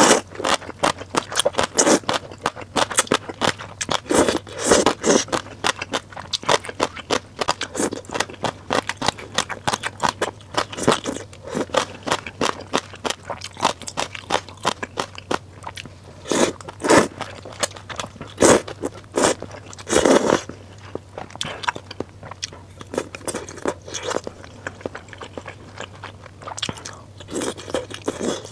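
Close-miked eating of snail rice noodles: wet slurping of noodle strands and chewing, a dense run of clicks and smacks with several longer slurps.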